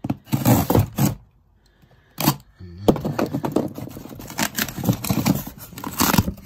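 Cardboard box being cut open with a utility knife and its packaging pulled apart: scraping and crackling of cardboard and plastic. A short burst, a quiet gap of about a second, then a longer run of dense scraping and rustling.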